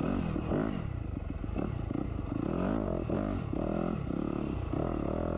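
Dirt bike engine revving up and down again and again as the throttle is worked while climbing a slick, rutted trail.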